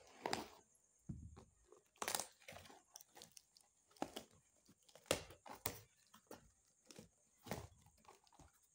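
Taped plastic courier mailer bag being torn open by hand: a string of short, irregular ripping and crinkling noises from the plastic and tape.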